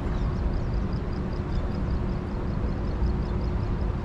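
Steady low rumble, with a faint series of quick high chirps or ticks at about five a second over the first three seconds.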